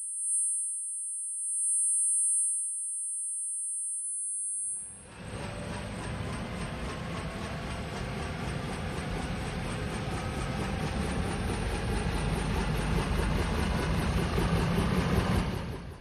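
Title-sequence sound effect. A steady high-pitched whine is heard first. About five seconds in, a rumbling, engine-like noise with rising tones starts and builds steadily louder, then cuts off just before the end.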